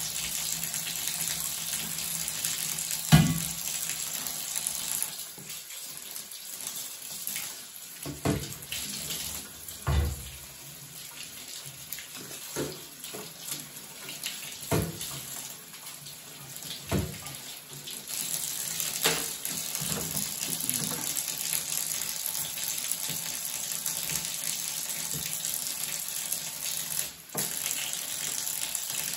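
Bathtub tap running water, the flow stronger in the first few seconds and over the last ten. About ten separate sharp knocks and clunks come through it as a brass trumpet is handled in the tub while a flexible cleaning snake is worked through its tubing, the loudest about three seconds in.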